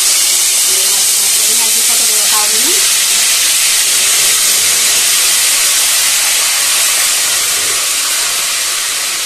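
A loud, steady hiss that sets in suddenly and eases slightly near the end.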